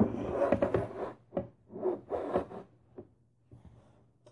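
Rubbing and scraping handling noise: a dense scuffle for about a second, then four or five separate short strokes about half a second apart, growing fainter.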